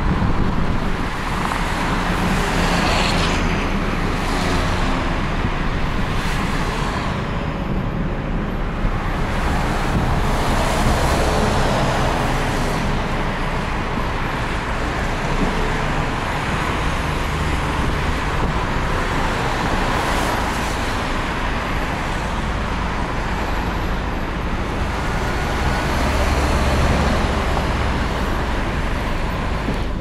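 Moving city bus heard from inside: engine drone and road noise as a steady rumble, the low rumble growing louder briefly near the end.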